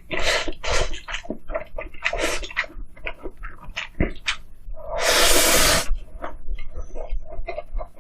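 Close-miked eating sounds: a run of quick bites, chewing and mouth clicks, with one louder, longer noisy burst lasting about a second a little past the middle.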